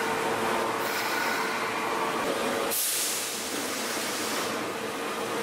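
Osaka Metro Midosuji Line subway train standing at the platform with its doors open, its on-board equipment giving a steady hum. About three seconds in, a sharp hiss of released air fades away over a second.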